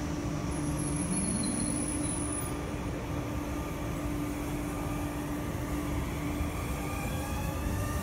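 NS VIRM double-deck electric multiple unit pulling away from the platform. A steady hum sounds first, then from about six seconds in the traction motors whine, rising in pitch as the train gathers speed.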